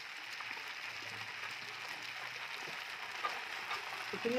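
Boiled spaghetti deep-frying in hot oil in a pan, giving a steady, even sizzle. A short, louder sound comes right at the end.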